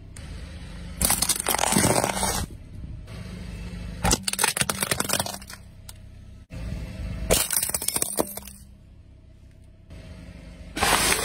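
Car tyre rolling over and crushing toys and objects, with cracking, crunching and breaking of plastic in four separate bursts of a second or so each.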